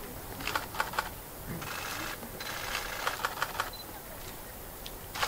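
Camera shutters clicking in quick bursts of rapid clicks, with single clicks in between.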